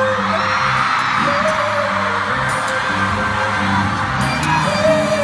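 Live pop music over an arena sound system, a male vocalist singing into a microphone over the backing track, with the audience screaming, loudest in the first few seconds.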